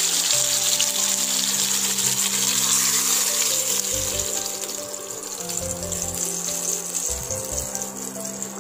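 Catla fish shallow-frying in hot oil in a non-stick pan, sizzling steadily; the sizzle thins out from about halfway through as the fried fish is lifted out of the pan. Soft background music runs underneath.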